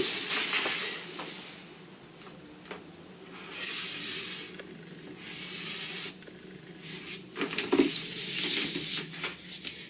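A felt-tip marker drawing straight lines along a plastic ruler on a large paper pattern sheet: several strokes of about a second each, with the ruler shifted across the paper between them.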